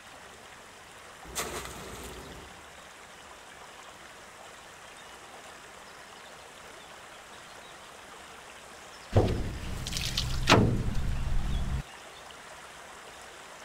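Water splashing: one brief splash about a second in, then a louder stretch of several splashes from about nine seconds in that cuts off abruptly, over a faint steady flow of water.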